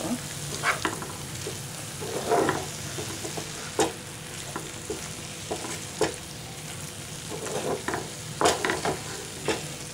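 Diced potatoes and gongura leaves frying in oil in a pan with a steady sizzle, while a wooden spatula stirs and scrapes them in irregular strokes against the pan.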